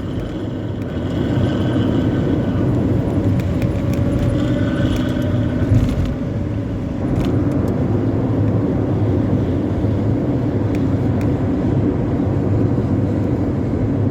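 Bus engine running hard at speed through a 'knalpot ngorok' (snoring) exhaust: a steady, deep, rough drone over road noise, briefly louder about six seconds in.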